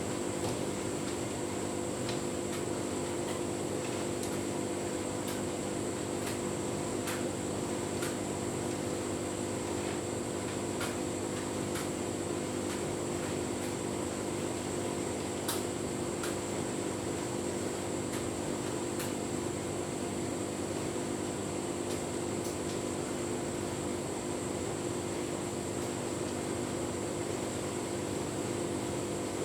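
Tumble dryer running a full load of bedding: a steady motor and fan hum as the drum turns, with light, irregular ticks scattered through it.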